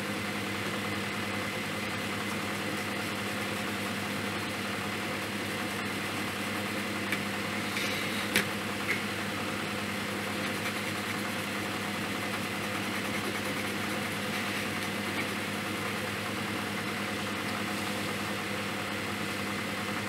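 A steady machine-like hum with a faint high whine running over it, and a few faint clicks about eight seconds in.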